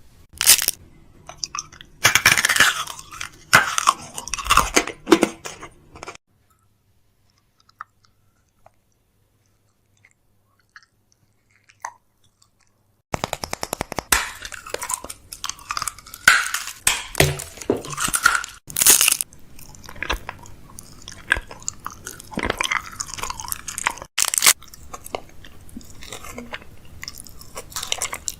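Close-up crinkling, clicking and clattering of food packaging and containers being handled during fridge restocking, broken by several seconds of near silence in the middle.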